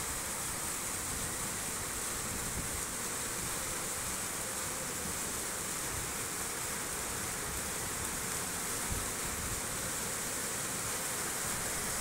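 Floodwater rushing down a street in a heavy downpour, a steady, even roar with a hissing top.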